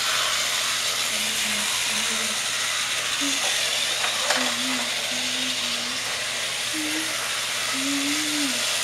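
Small electric motors of battery-powered toy trains whirring steadily as they run on plastic track.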